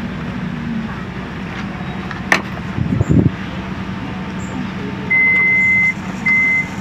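Electronic warning beeps from a white minivan: one long high beep about five seconds in, then shorter evenly spaced beeps, over a steady low hum. Earlier there is a sharp click and a low thump as a person climbs in through the van's sliding door.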